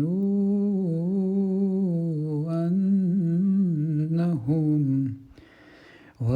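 A man's voice in melodic Quran recitation, dry with no added echo effects, holding a long ornamented note that wavers up and down in pitch. About five seconds in it breaks off for a brief breath, and the chanting starts again near the end.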